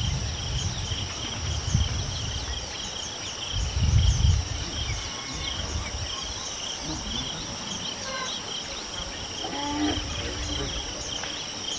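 Steady shrill chorus of insects in two high pitches, with scattered short bird chirps over it. A brief low rumble comes about four seconds in.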